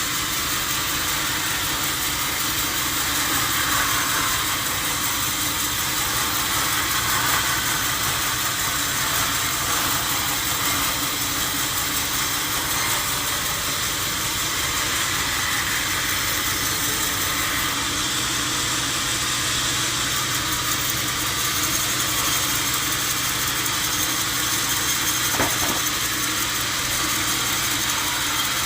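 Sawmill machinery running steadily: a constant motor hum under a loud, even hiss, with one brief knock near the end.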